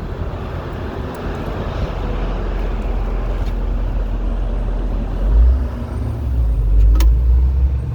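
City street traffic with a heavy vehicle rumbling past, its low rumble swelling over the last few seconds. A single sharp click comes about seven seconds in.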